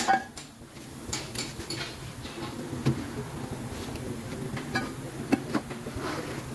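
A handful of short, light clicks and knocks over a steady low hum.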